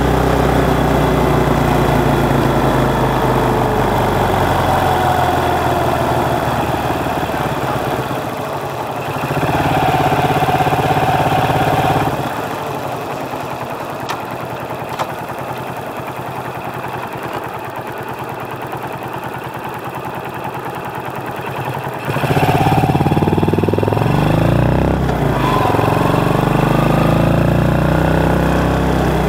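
Motorcycle engine heard through a microphone mounted under the seat, running and revving as the bike rides. About halfway it drops to a quieter idle, then revs up again with rising pitch as the bike pulls away.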